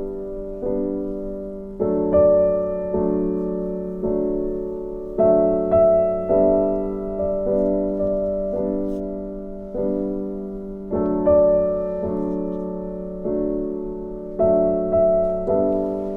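Background music: a gentle solo piano playing slow, repeated chords and notes, each one struck and left to fade.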